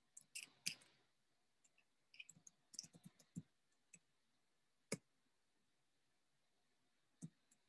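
Faint, irregular clicking of a computer keyboard at a desk. It comes in two short runs of clicks early on, then a single sharper click about five seconds in and another near the end.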